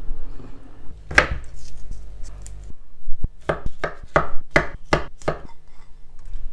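Kitchen knife chopping peeled chestnuts on a wooden cutting board: a quick run of about six sharp cuts in the second half. Earlier there is a single knock about a second in.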